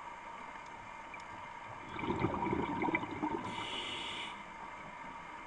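Scuba diver's regulator underwater: a burst of exhaled bubbles rumbling and gurgling for about a second, about two seconds in, then a short hiss of the next breath, over a steady hum.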